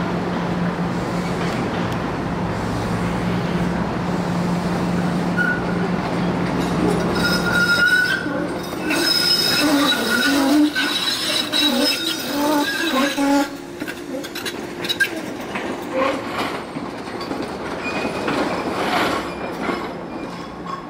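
SEPTA Kawasaki K-car streetcar pulling out with a steady low hum, then its wheels squealing and clattering over the track as it rounds a tight curve, from about eight seconds in. The squeal fades to a few fainter squeals near the end.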